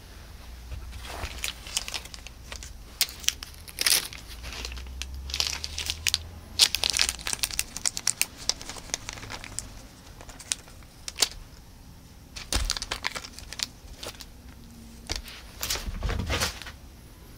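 Crinkling and rustling of a feather cat toy being waved and batted, a long irregular string of crackly clicks, with a couple of soft thumps near the end.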